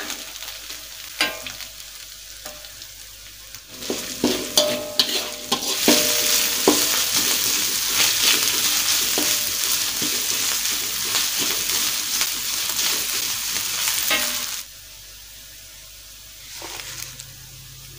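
Sliced green chillies frying in oil with ground spice paste in a wok, sizzling, with a metal spatula scraping and knocking against the pan as they are stirred. The sizzle grows loud about six seconds in and cuts off suddenly near the end.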